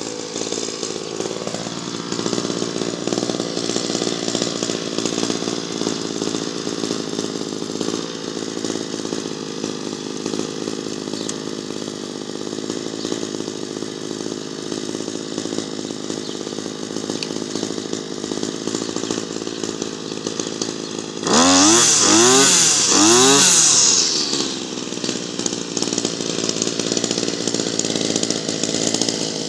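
Makita EM3400U two-stroke brushcutter engine running steadily. About three-quarters of the way through it is revved hard three times in quick succession, much louder, the pitch rising and falling with each rev, then settles back to its steady running.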